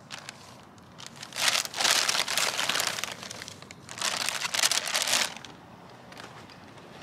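Plastic trash bag crinkling as it is handled, in two loud bursts: one starting about a second in and lasting about two seconds, and a shorter one about four seconds in.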